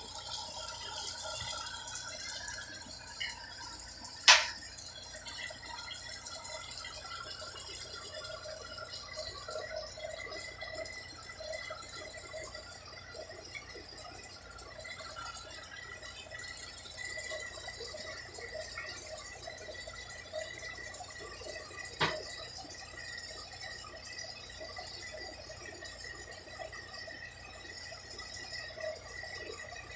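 Vegetables sizzling quietly in a pot on a gas stove, with two sharp clinks of a metal spoon against the pot, one about four seconds in and another past the middle.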